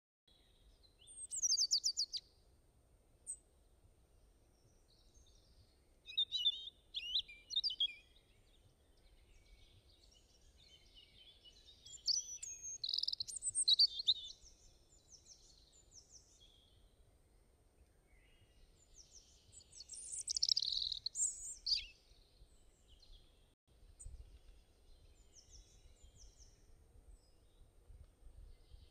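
Birds chirping and singing in four short bouts a few seconds apart, over a faint low rumble.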